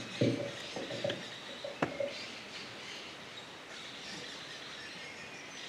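A few soft knocks and a sharp click in the first two seconds, then faint bird chirping over a low steady background.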